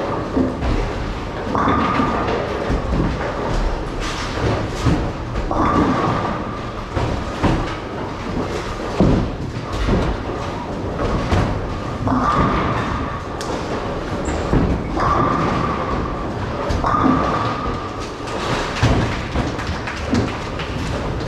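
Bowling alley noise: bowling balls rumbling down the lanes and pins being knocked down, with a sharp clatter or thud every few seconds over a steady rumble.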